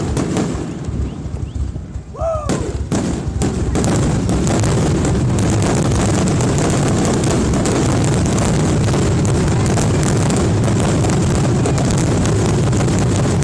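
Aerial fireworks display: bangs and crackling from bursting shells, thickening into a dense, continuous, very loud barrage from about four seconds in.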